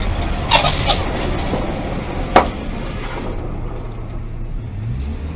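Steady low rumble of road and engine noise inside a moving vehicle, picked up by its dash camera. A short hiss comes about half a second in, and a single sharp click a little over two seconds in.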